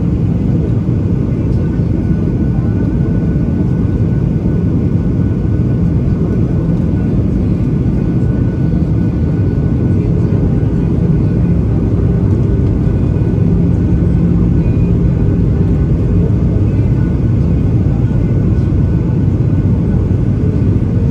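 Steady cabin noise inside a Boeing 737-800 on descent, heard from a window seat over the wing: the CFM56-7B jet engines and rushing airflow make a low, even rumble with faint steady hums above it.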